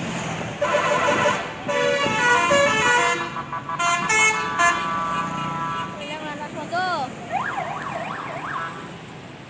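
Bus 'telolet' musical air horn playing a tune of quickly changing notes, then a few rising-and-falling whooping tones about seven seconds in.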